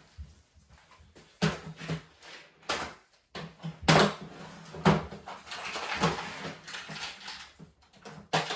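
Irregular scraping and rubbing on the opened MacBook Pro case, with several sharp clicks and knocks, as the battery bay is cleaned.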